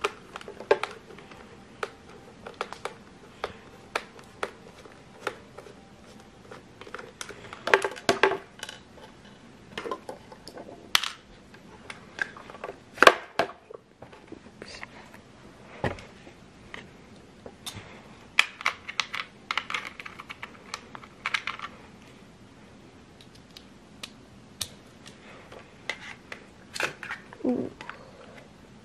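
Irregular clicks and taps of a screwdriver working the screws out of a handheld blender's plastic housing, with the plastic casing knocking as it is handled.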